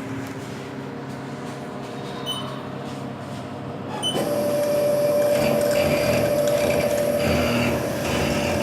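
Haas CNC milling machine: low machine hum with a couple of short beeps, then about four seconds in the spindle starts and runs with a steady whine at constant speed, ready for touching off the Z offset.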